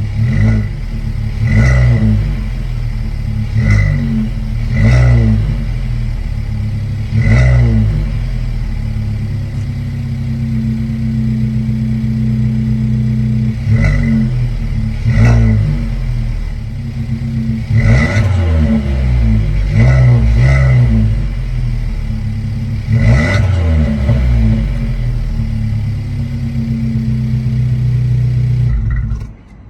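Exhaust of a Suzuki Swift Sport (ZC33S) with its 1.4-litre turbocharged four-cylinder, heard from outside the car. It idles steadily and is blipped about a dozen times in short revs that rise and fall quickly, some in quick pairs. The sound stops just before the end.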